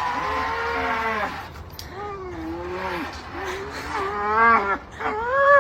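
A dog howling in several long, wavering calls, one after another, the later ones sliding upward in pitch.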